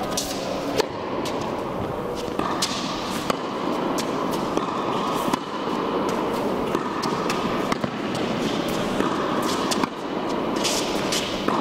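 Tennis balls being struck by rackets in a volley exchange: a string of sharp pops, about one every half second to a second, each with a short echo from the indoor tennis hall, over a steady background noise.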